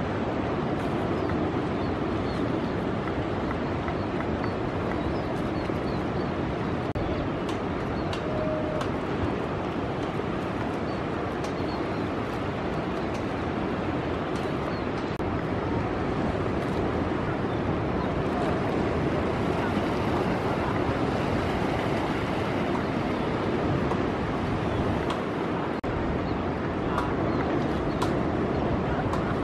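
Ocean surf breaking on a reef, a steady wash of noise with a few faint clicks.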